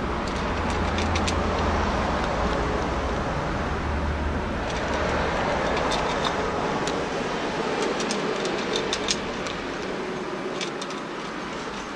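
A cat crunching dry kibble from a stainless steel feeding tray: clusters of sharp, close clicks, thickest in the second half, over steady traffic noise whose low rumble fades about halfway through.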